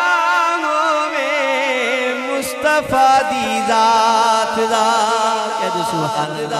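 Unaccompanied male voices chanting a Punjabi naat: a lead voice draws out a long, wavering melodic line without clear words, over a sustained low note that steps down near the end.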